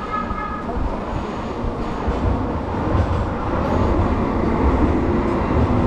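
A rail vehicle rumbling past, its low rumble growing louder about two seconds in, with a faint steady whine in the second half.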